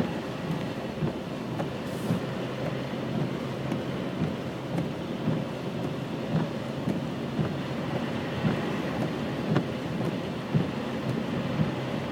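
Wind in a snowstorm buffeting the microphone: a steady low rumble with irregular gusty thumps.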